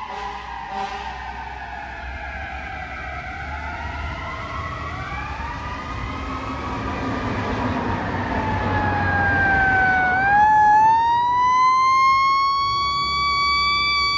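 Fire truck sirens wailing, several overlapping and sliding down in pitch over a low engine rumble. About ten seconds in, a siren winds up, rising in pitch and holding a strong, steady high wail as it grows louder.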